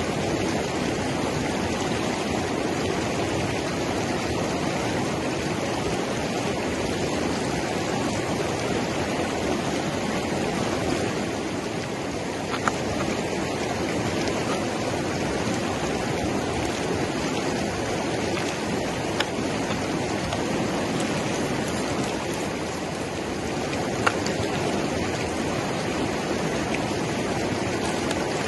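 River rapids rushing steadily, with three brief clicks partway through.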